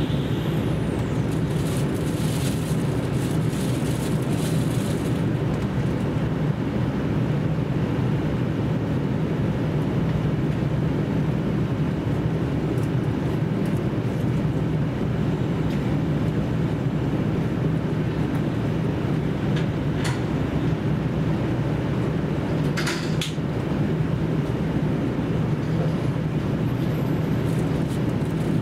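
Running noise of a JR Central KiHa 75 diesel railcar under way, heard inside the passenger cabin: a steady low engine drone over wheel and rail rumble. Two brief sharp clicks come about two-thirds of the way through.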